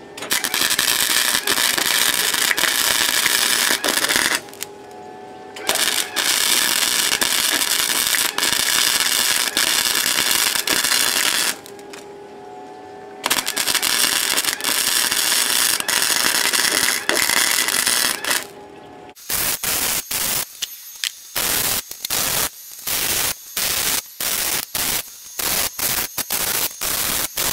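Flux-core wire-feed welder arcing on sheet-metal body panel: three long runs of steady crackle with short pauses between them, then, for the last several seconds, a quick series of short stitch-weld bursts.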